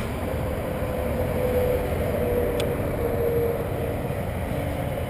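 Steady low rumble of wind buffeting the camera's microphone, with a faint wavering hum under it and a single sharp click about two and a half seconds in.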